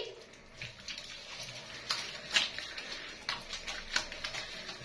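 Wet hands lathering shampoo into a soaked cat's fur: irregular soft wet squishes and pats, one after another.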